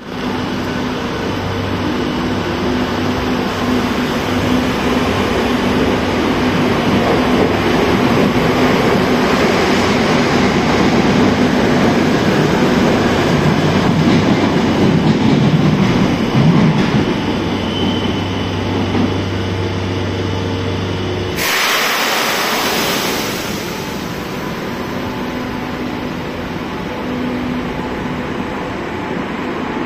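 Madrid Metro 2000-series electric trains in the station: steady low motor hum and wheel-on-rail rumble that builds as one train pulls out along the platform and another runs in. About 21 seconds in comes a sudden loud hiss of air lasting a second or two, and the low hum drops away after it.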